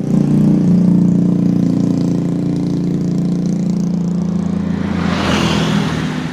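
A CC206 diesel-electric locomotive's engine running with a steady, loud low drone. About five seconds in, a rush of noise swells and fades.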